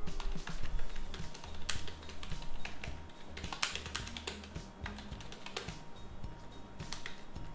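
Typing on a computer keyboard: scattered, irregular key clicks, a few of them louder than the rest.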